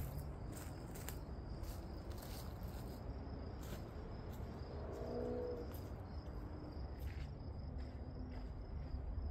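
Faint footsteps crunching on a dry dirt and gravel trail, a short tick every half second to second, over a steady high-pitched insect trill and a low outdoor rumble.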